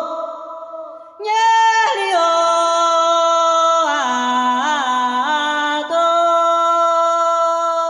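A woman singing solo and unaccompanied into a microphone: long held notes with quick wavering turns. About a second in she takes a short break, then starts a new phrase on a high note that drops down.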